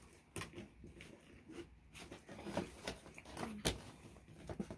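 Hands handling and opening a cardboard toy box and its packaging: scattered rustling and small clicks and taps, with one sharper tap about three-quarters of the way through.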